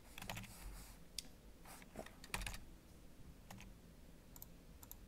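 Faint, scattered keystrokes on a computer keyboard, a few keys at a time with short pauses between.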